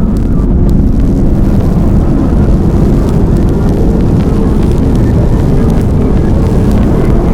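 A loud, steady low rumble, like an engine or aircraft sound effect, with no distinct strikes or pauses.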